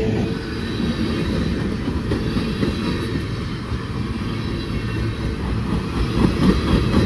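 A CSX freight train's cars rolling past: a steady rumble of wheels on the rails, with a few faint wheel clicks toward the end.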